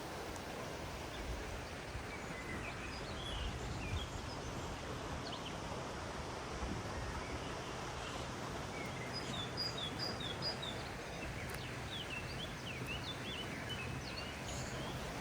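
Small songbirds chirping and singing over a steady outdoor rush of noise. Around two-thirds of the way through comes a quick run of short repeated high notes.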